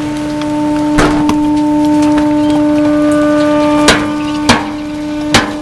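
Garbage packer truck running with a steady droning hum while its load is compacted. Sharp cracks of trash breaking come about a second in and three more times near the end.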